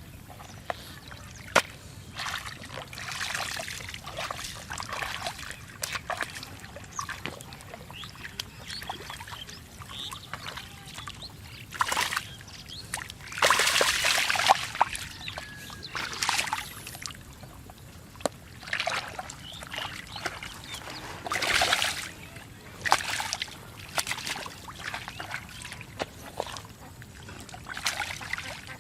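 Hands splashing and sloshing through shallow muddy water while groping for catfish, in irregular bursts. The biggest splashes come about halfway through and again about three-quarters of the way in.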